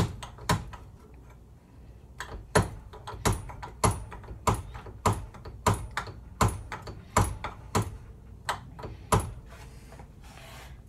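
Hand-operated tube beading tool clamped in a bench vise, its handle worked in short strokes around an aluminium intake pipe. It gives a sharp metal click at each small bite, about one every two-thirds of a second, as it rolls a raised bead into the pipe to hold the hose clamp and seal.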